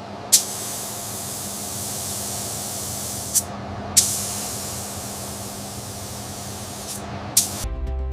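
Steady spraying hiss of an air or spray jet, broken by several abrupt cuts. Music takes over near the end.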